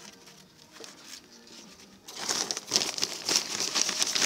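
Plastic sacks rustling and crinkling as they are handled and opened, starting about halfway through after a quieter stretch with a few faint clicks.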